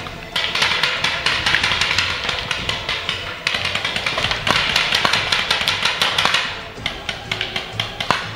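Background music with many sharp, rapid clicks and taps running through it, several a second.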